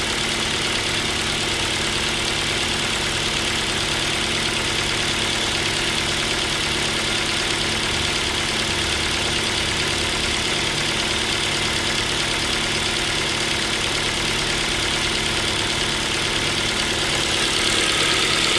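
Ford Focus 2's Duratec HE 2.0 inline-four idling steadily with a knock that came on as the engine warmed to about 33–34 °C. It sounds like piston pin knock, though the owner doubts the pin, since a pin would knock from cold and fade as the engine warms.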